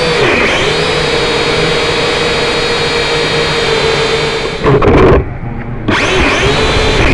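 M:TECH Sky Drone Plus quadcopter's motors and propellers whining steadily, with a brief dip in pitch just after the start. About four and a half seconds in come loud knocks as the drone hits the floor; the whine cuts out for about half a second, then the motors spin back up.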